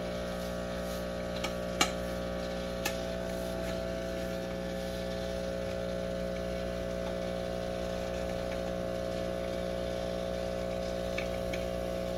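Steady electrical hum of a running appliance, with a few light clicks in the first three seconds, the sharpest about two seconds in.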